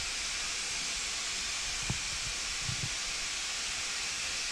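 Steady hiss of steam from a preserved industrial steam locomotive, with a single sharp knock about two seconds in and a couple of soft low thuds just after.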